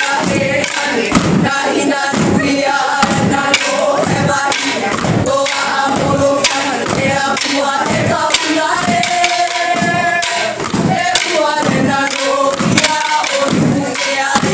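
Group of voices singing a hula song, punctuated by the sharp clacks of wooden kāla'au sticks struck in a steady beat.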